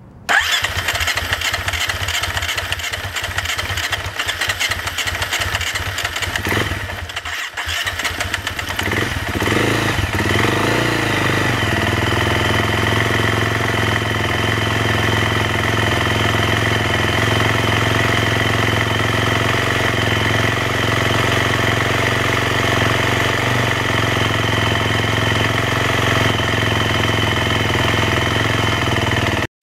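KTM 350 EXC-F single-cylinder four-stroke engine being started: it cranks and stutters for about seven seconds and drops off briefly. It then fires with a short rev and settles into a steady run with the throttle held cracked open, as it will not idle on its own; the owner suspects the idle adjustment knob was knocked out of place.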